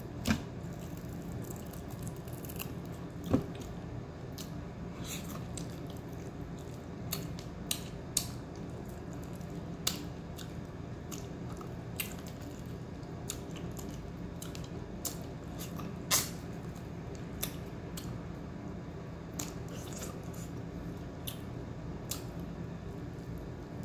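Someone eating with the mouth close to the microphone: wet chewing with irregular sharp clicks and smacks, over a steady low hum.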